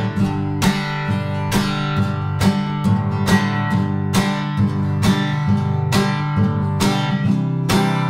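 Background music: acoustic guitar strummed in a steady, even rhythm.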